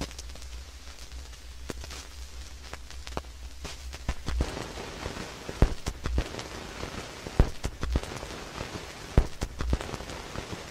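Vinyl LP surface noise after the music has ended: steady hiss and crackle from the stylus riding the run-out groove, with a sharp pop repeating about every 1.8 seconds, once per turn of the record at 33⅓ rpm, and a low rumble underneath.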